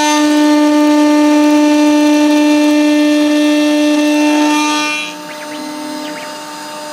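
Spindle of a homemade CNC engraver running a ball end mill through steel, giving a steady whine. It is loud until about five seconds in, then drops to a quieter, steady run.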